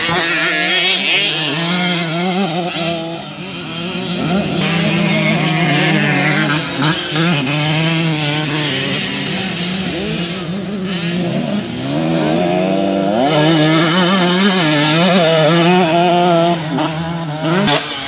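KTM 125cc two-stroke motocross bike engine being ridden hard, its pitch rising and falling again and again with the throttle and gear changes.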